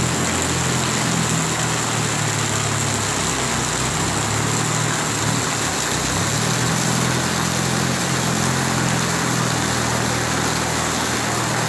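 A vehicle's engine hums steadily, heard from inside the vehicle, over a constant hiss of rain and road noise. The engine hum fades for a few seconds in the middle, then returns.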